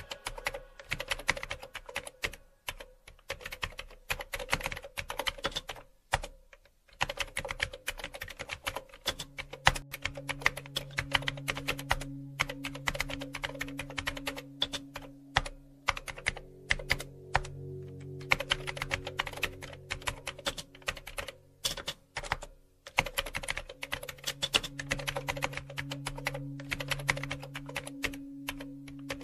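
Computer keyboard typing: quick runs of key clicks with short pauses, over soft background music with held low notes that come in about a third of the way through.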